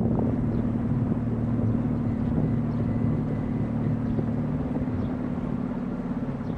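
Small canal tour boat's motor running steadily, a constant engine hum that eases off slightly near the end.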